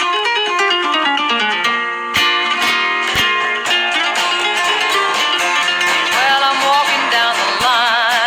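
Outro music led by plucked guitar, picked notes moving quickly over a steady backing, with a wavering held note near the end.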